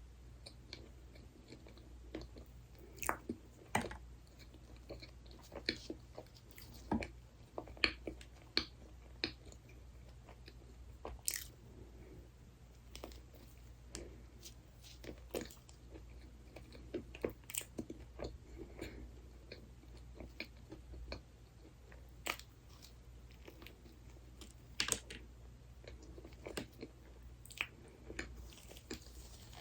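Close-miked eating sounds of someone chewing and biting into dessert, with irregular sharp crunchy, clicky mouth sounds scattered throughout over a faint low hum.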